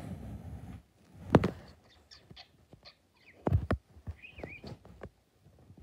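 Pet parakeet giving short high chirps and one brief warbling call midway, among a few sharp thumps and knocks, the loudest about a second in.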